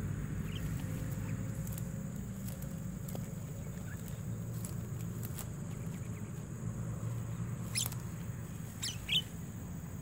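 A few short, sharp calls from jalak starlings caught on birdlime, the loudest about nine seconds in. Scattered light clicks and a steady low rumble run underneath.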